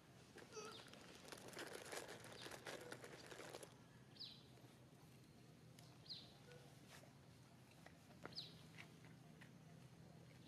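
Faint, short high chirps that drop in pitch, repeating about every two seconds, over a low steady hum. A stretch of rustling and small clicks fills the first few seconds.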